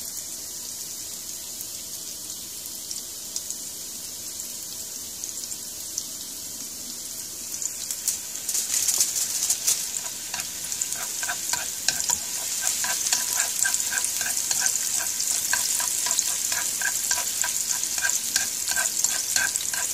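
Sliced shallots sizzling in hot oil in a nonstick frying pan, growing louder and more crackly about eight seconds in. From about ten seconds on, the chopsticks stirring them tap the pan lightly about twice a second.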